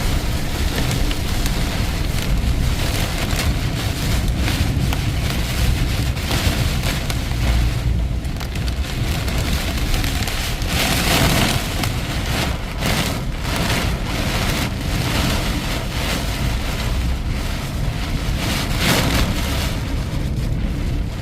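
Heavy rain and hail pelting down hard in a violent storm, a dense steady hiss with many sharp impacts, over a low rumble of wind.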